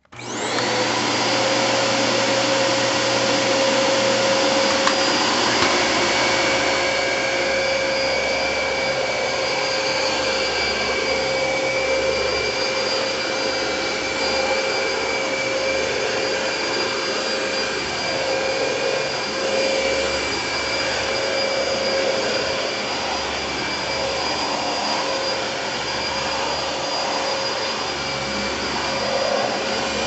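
Dyson DC25 upright vacuum cleaner switched on. Its motor spins up to full speed within about half a second, then runs with a steady high whine and rushing air as it is pushed back and forth over carpet.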